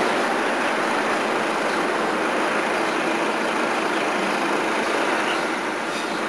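Electric interurban railcar approaching along the track: a steady running noise of steel wheels on rail and its traction motors, with no horn.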